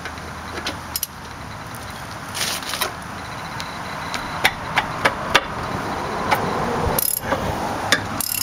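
Scattered metallic clicks and clinks of hand tools being fitted onto a rear brake caliper bolt, over a steady background noise that grows slowly louder.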